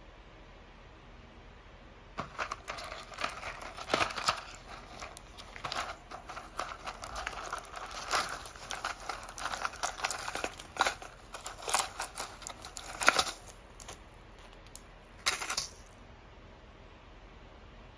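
A cardboard box of Norshin Pure painkiller tablets being handled and opened: the flap pulled open and the foil-and-plastic blister sheets slid out and set down, giving irregular crinkling with many light clicks. It starts about two seconds in and stops a couple of seconds before the end.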